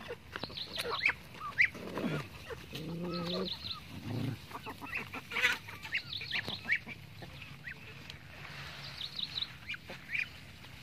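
Ducks and other farmyard fowl calling: short high chirps and squeaks come in small clusters, with a lower, drawn-out call about three seconds in.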